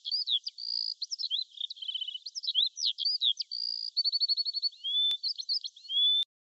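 A songbird singing a fast, varied song of whistles, sweeping notes and short rapid trills, with no pause between phrases. It cuts off suddenly near the end.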